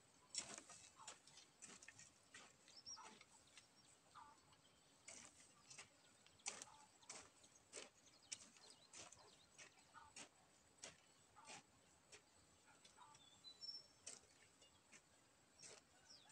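Faint, irregular knocks and scrapes of a hand hoe chopping into dry soil, roughly one or two strokes a second, with a couple of short bird chirps.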